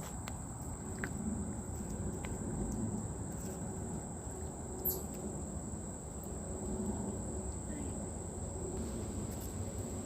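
Insect chorus in summer vegetation: a steady, unbroken high-pitched trill.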